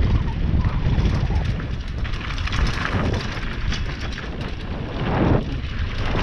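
Downhill mountain bike riding fast down a dirt trail: wind buffeting on the bike-mounted camera's microphone over a continuous low rumble of tyres on dirt and stones, with many quick rattles and clicks as the bike goes over bumps.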